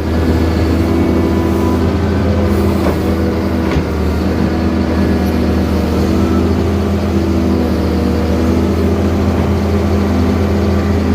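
Diesel engine of a Caterpillar 320 CL hydraulic excavator running steadily while it digs out a drainage ditch, with a couple of brief knocks about three to four seconds in.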